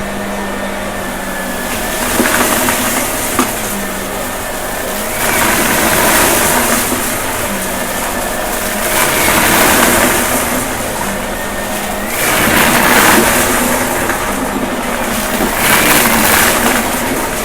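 Shark vacuum cleaner running with a steady hum, its rushing noise swelling and easing in a slow rhythm about every three to four seconds.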